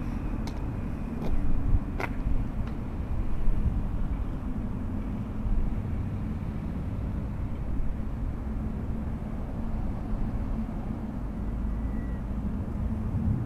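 Steady low rumble of engine and traffic noise, with a few sharp clicks in the first three seconds.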